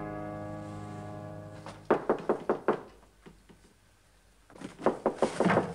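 A sustained music chord fading away, then rapid knocking on a door: a burst of about five knocks about two seconds in, and a second, longer burst near the end.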